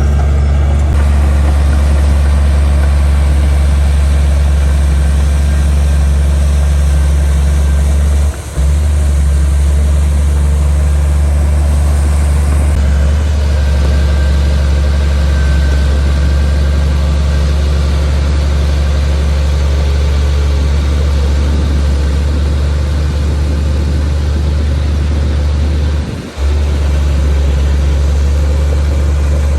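Heavy diesel engine of a bulldozer running steadily at a constant speed, with two brief sudden drops in level, one about a third of the way in and one near the end.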